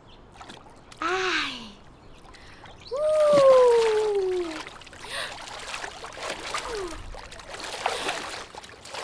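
Swimming-pool water splashing as a woman gets in and swims, with two wordless cries from a woman falling in pitch, a short one about a second in and a longer, louder one about three seconds in.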